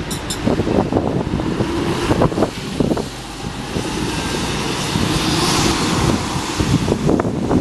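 Single-decker diesel bus pulling away and accelerating past, its engine running with a steady rumble. Wind buffets the microphone throughout.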